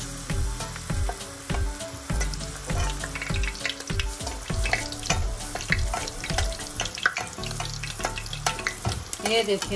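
A puri deep-frying in hot oil, sizzling and bubbling as a spatula presses it and splashes oil over it so that it puffs. Short scrapes and taps of the spatula against the pan come through the sizzle.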